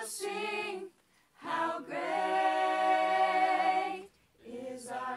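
A small group of singers singing a cappella in harmony, with no instruments. A short phrase breaks off, then a chord is held for about two seconds, and a new phrase begins near the end.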